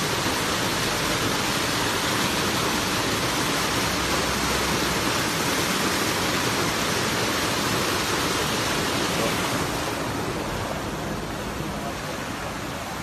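Floodwater from heavy rain rushing down a narrow lane: a steady, even rush of water noise that drops somewhat quieter near the end.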